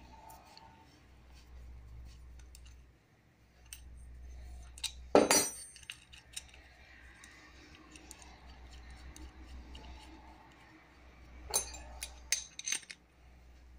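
Metal spanners clinking on the nut and bolt of a walk-behind tractor's belt tensioner pulley arm as it is tightened: a loud metallic rattle about five seconds in, and a quick run of sharp clinks near the end.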